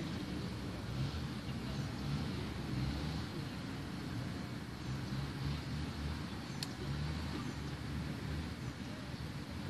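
Low, uneven outdoor rumble, with a single sharp click about two-thirds of the way in.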